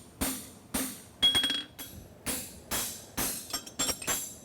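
Farrier's hammer striking a steel bar shoe on an anvil, about ten blows at roughly two a second, each with a short metallic ring. The blow about a second in is the loudest and rings longest.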